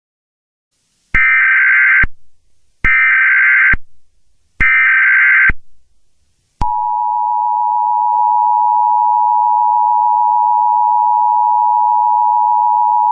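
Emergency Alert System SAME header: three identical bursts of digital data tones, each just under a second long and about a second apart. About six and a half seconds in, the steady two-tone EAS attention signal begins and holds.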